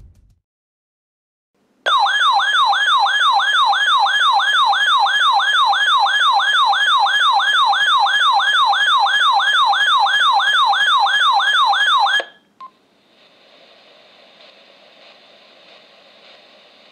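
RadioShack NOAA weather radio sounding its alert alarm: a loud electronic warble sweeping up and down about three times a second. It starts about two seconds in and cuts off abruptly after about ten seconds, leaving faint radio hiss.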